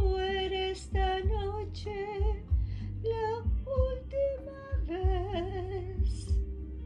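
A woman singing a bolero, holding long notes with a wide vibrato, over musical accompaniment with a regular low bass pulse.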